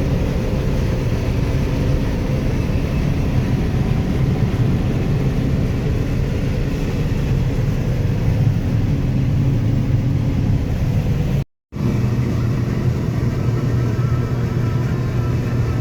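Farm harvest machine's engine running steadily with a low drone. The sound cuts out completely for a moment about eleven and a half seconds in.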